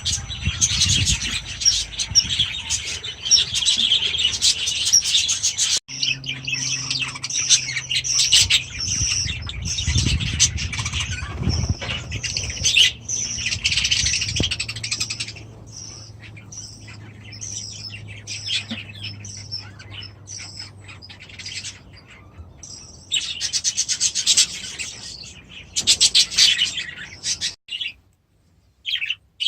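A flock of aviary birds, budgies among them, chirping and chattering continuously. The chatter thins to scattered chirps about halfway through, swells again briefly near the end, then drops away.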